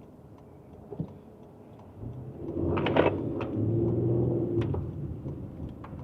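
Engine and road rumble heard from inside a moving car: a low hum that swells about two seconds in, holds for about three seconds with a steady engine drone, then eases off, with a few light clicks.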